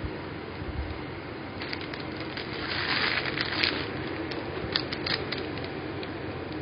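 Packaging being handled and opened: rustling and crinkling, loudest about halfway through, then a few sharp clicks.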